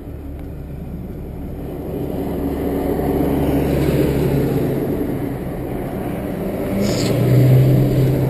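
Car engine heard from inside the cab, pulling away and accelerating. Its low drone grows steadily louder, peaking near the end.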